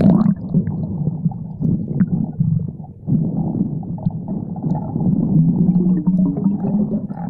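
Muffled, low rumbling water noise heard by a camera submerged in a river, with all the higher sounds cut off. A faint hum comes in briefly near the end.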